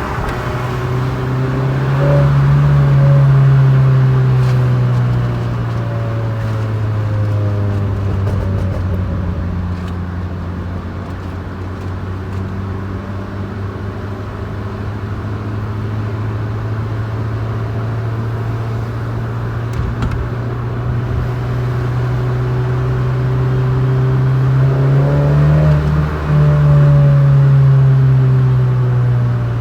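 Mini R50's four-cylinder engine running through a full Scorpion cat-back exhaust and manifold, with a steady exhaust note. The revs rise and hold about two seconds in, then settle back, and rise again near the end.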